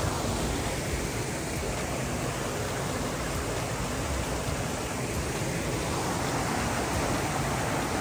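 Small rocky stream rushing over little cascades: a steady, even rush of water.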